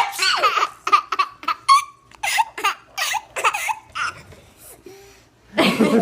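Baby laughing in a string of short giggling bursts, breaking off for about a second and starting again loudly near the end.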